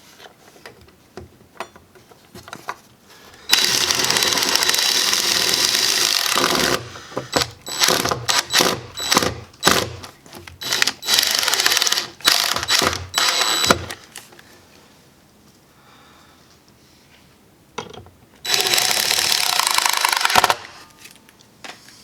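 Handheld power tool running in bursts: a continuous run of about three seconds, then a series of short trigger pulses for several seconds, a pause, and another run of about two seconds.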